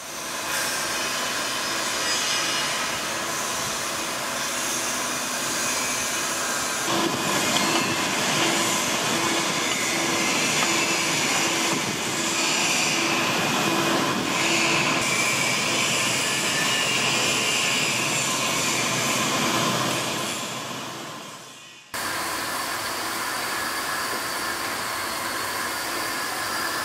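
Drilling machine running, its twist drill cutting bolt holes into a metal valve flange and valve body: a steady machine drone with the hiss and grind of the bit in metal. The sound dips sharply about three-quarters of the way through, then comes straight back.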